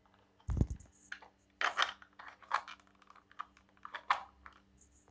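Hand-operated plastic slider nut chopper pushed back and forth over a chopping board, grating almonds and other nuts: a dull thud about half a second in, then a string of short crunching scrapes.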